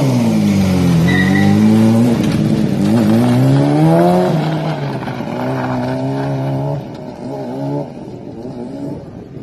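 Racing ride-on lawn mower with a motorcycle engine accelerating hard, revving up and dropping in pitch several times as it changes gear and lets off the throttle. It grows fainter toward the end as it pulls away.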